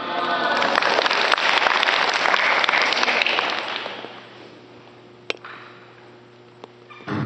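Audience applause: many hands clapping, dying away after about four seconds. Then a quiet stretch with a couple of sharp clicks, and music with drums cuts in right at the end.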